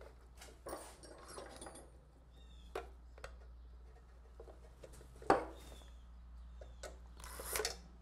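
Quiet handling sounds as a metal license plate and screws are set onto a small wooden birdhouse: a few light clicks and knocks, the sharpest about five seconds in, and a brief rustle near the end, over a low steady hum.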